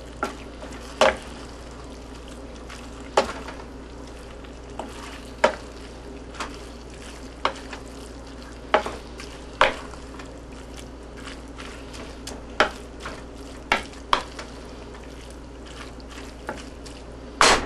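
Wooden spoon stirring ground beef and chopped vegetables in a hot frying pan: a steady sizzle under irregular knocks and scrapes of the spoon against the pan.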